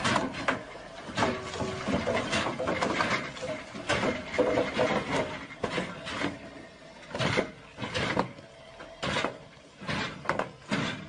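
Large concrete pipes rolling off a flatbed trailer and crashing onto the ground and against each other. The result is an irregular run of loud knocks and thuds, about a dozen over the stretch.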